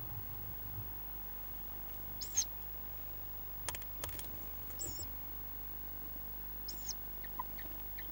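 Tawny owl chicks in a nest box giving short, high-pitched squeaky calls, three of them a couple of seconds apart, with a few fainter squeaks near the end. Two sharp clicks of movement in the box come in the middle, over a steady low hum.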